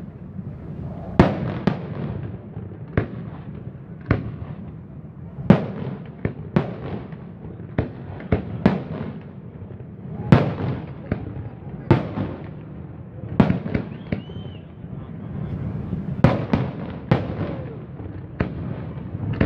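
Aerial fireworks shells bursting in quick succession, one or two sharp bangs a second, each trailing off in a rumbling echo.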